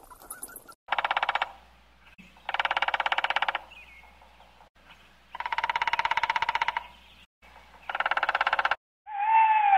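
An animal calling four times, each a buzzy, rapidly pulsed call lasting about a second. A different, smoother call begins near the end.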